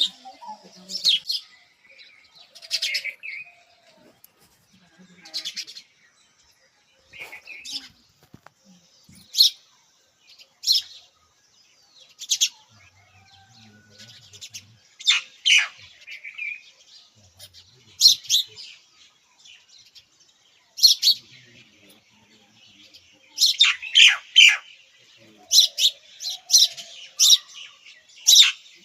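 Birds chirping: short, sharp, high chirps every second or two, coming thicker in a quick run near the end.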